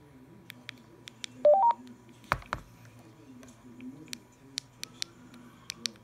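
Keypad clicks from a Hytera PT580H Plus TETRA handheld radio as its menu keys are pressed. About a second and a half in, the radio gives a short rising three-note beep, and two heavier knocks follow.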